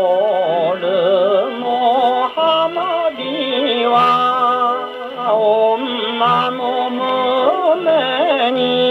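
A 1953 78 rpm record playing on a Columbia G-241 portable wind-up gramophone: a man sings a Japanese popular song with a wide vibrato over a band. The sound is thin, with little treble.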